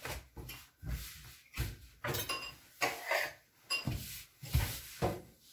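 Hands handling a thin sheet of rolled dough and brushing a starch-dusted kitchen worktop: a run of about eight short, irregular knocks and taps against the counter.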